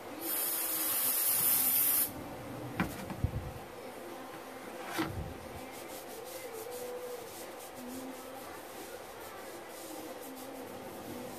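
A loud rubbing hiss of a shop rag for about two seconds, stopping abruptly, then a few light clicks and knocks as the grease-packed CV joint from a Jeep Wrangler JK front driveshaft is handled and wiped.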